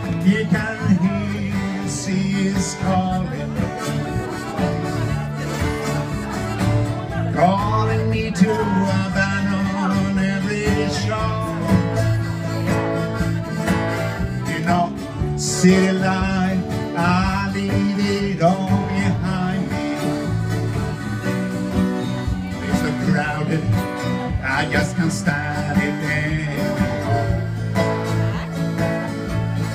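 Live country-style band playing: strummed acoustic guitars, electric guitar and accordion over a steady bass line.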